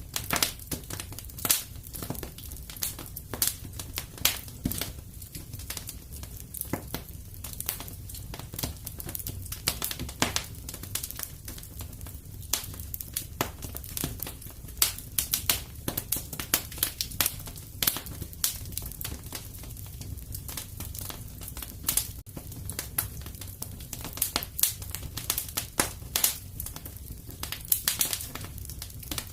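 Wood fire in a fireplace crackling, with frequent irregular snaps and pops over a steady low rumble.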